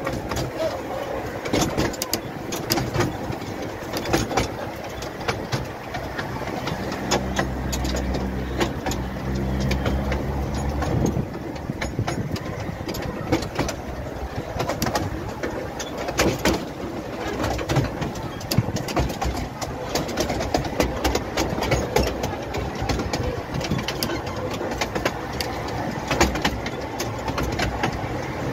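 A 12¼-inch gauge miniature train running, heard from an open carriage: a steady rattle of wheels on track with many sharp clicks throughout. A low engine drone joins from about seven to eleven seconds in.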